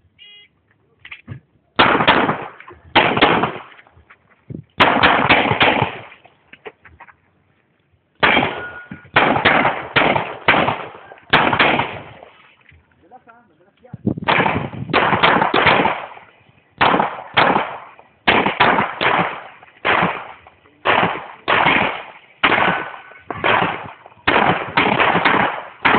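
Pistol shots fired rapidly, mostly in quick pairs and strings of several, each with a short echo. Short pauses between the strings, one of a couple of seconds about twelve seconds in.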